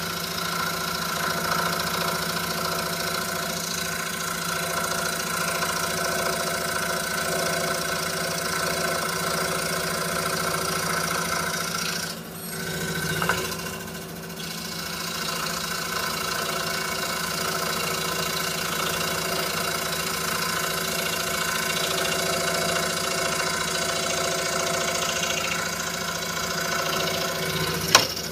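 26-inch RBI Hawk scroll saw running steadily with a 5-0 skip-tooth blade cutting Baltic birch plywood. The level dips briefly about twelve seconds in, and there is a sharp click just before the end.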